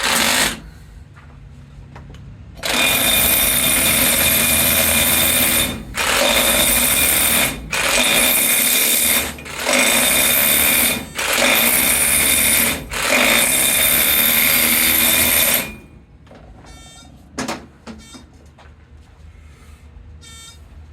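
Electric hammer drill running in six bursts of about one and a half to three seconds each, its bit hammering ore in a mortar to crush it. A short burst comes right at the start, and a single knock follows a little after the drilling stops.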